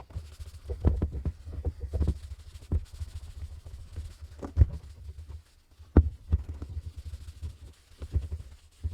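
Plastic headlight lens being scrubbed back and forth by hand with a headlight restoration wipe: a low rubbing rumble with irregular dull thumps as the hand presses and changes direction.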